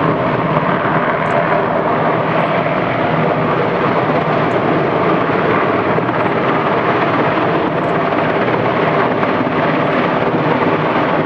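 A helicopter in flight, its rotor and engine running with a loud, steady noise.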